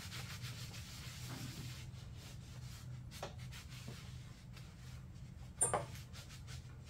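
Gloved hand scrubbing the cylinder-deck gasket surface of a 1988 Club Car DS engine, wet with carb cleaner, a dry rubbing sound, cleaning off the old head gasket ready for a new one. A single sharp knock comes near the end, over a low steady hum.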